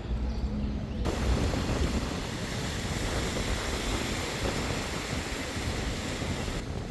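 A steady rushing noise, like surf or wind, that starts abruptly about a second in and cuts off abruptly near the end.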